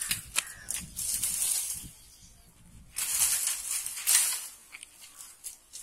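Dry bamboo stems, twigs and leaves rustling and crackling as a man climbs through a bamboo clump. There are a few sharp snaps at the start, then two long crackling bursts about a second in and about three seconds in, the second the louder.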